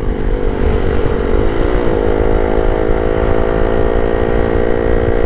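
Honda Sonic 150R's single-cylinder 150 cc engine running steadily while riding on the road, heard from the rider's seat with wind rumble on the microphone. The engine note dips and rises briefly about a second and a half in.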